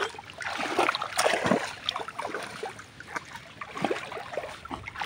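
Shallow muddy water splashing and sloshing in small, irregular bursts as it is worked by hand and with a bamboo-framed push net.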